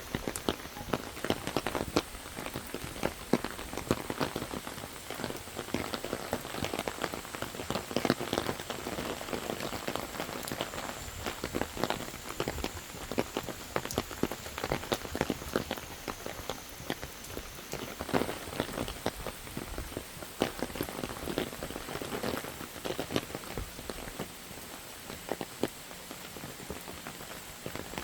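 Rain pattering in a steady scatter of irregular, closely spaced drops.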